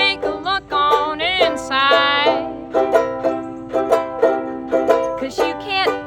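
Banjo-ukulele strummed in a steady rhythm, with a woman singing over it: a wavering held note in the first two seconds and another near the end.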